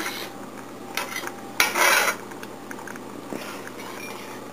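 Metal spoon stirring and scraping in a metal saucepan, with faint clinks and one louder scrape near the middle.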